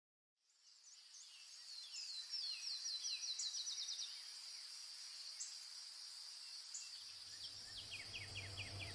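Outdoor ambience: a steady high insect drone with a bird calling in quick runs of short falling chirps, about two seconds in and again near the end. It fades in after a moment of silence, and a low hum joins near the end.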